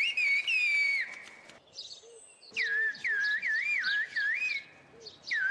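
Whistled Turkish (kuş dili, 'bird language'): a person whistling phrases of speech, the single clear tone gliding and wavering up and down. There are two whistled phrases with a pause between them, and the second ends on a long held note.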